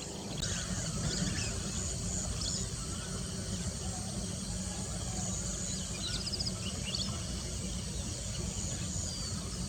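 Outdoor nature ambience: a steady low rumble with insects, and scattered short bird chirps and quick trills.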